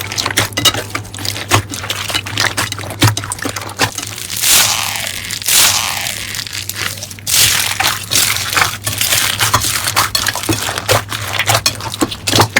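Crunchy slime being squeezed and pressed by hand, giving a dense run of small crackles and pops, with a couple of longer hissing squishes near the middle.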